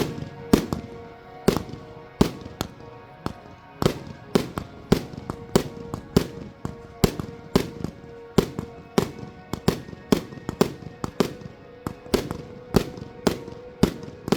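Fireworks display: a rapid string of sharp firework bangs, about two a second, with music playing underneath.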